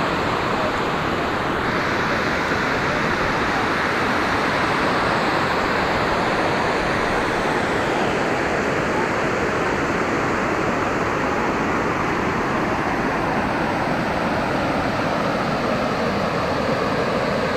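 Waterfall: a steady, dense rush of falling water, unbroken and even in loudness.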